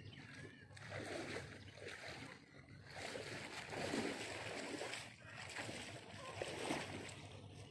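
Water sloshing and splashing in several irregular surges, each lasting about a second.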